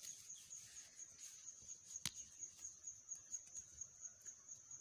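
Faint insect trilling: a steady, high-pitched pulsing that runs on without a break. A single sharp click about two seconds in.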